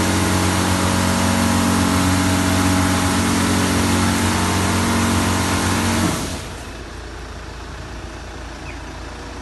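Touchless car wash machine running its high-pressure pump and spray jets: a loud, steady hiss of water over a steady motor hum. Both cut off suddenly about six seconds in, leaving a much quieter low rumble.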